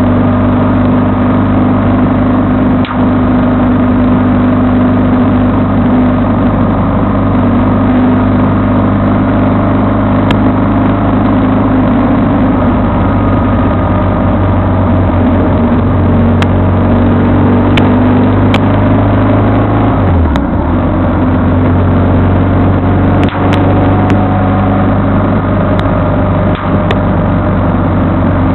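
A vehicle engine running steadily while under way, with road noise, a brief dip in engine pitch about twenty seconds in, and a few faint clicks.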